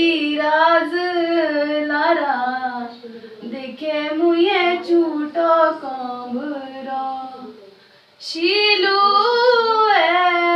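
A female voice singing a melody unaccompanied, in long held notes that glide between pitches, with a short pause for breath about eight seconds in.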